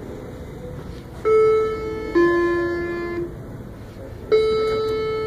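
Cruise ship elevator chime: a two-note falling ding-dong about a second in, and the higher note sounding again near the end, over a steady background hum.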